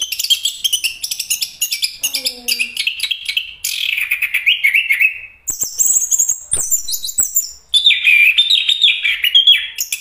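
Chestnut-capped thrush (anis kembang) singing a fast, varied song of high chirps and trills, broken by two short pauses. A few sharp clicks come in the middle.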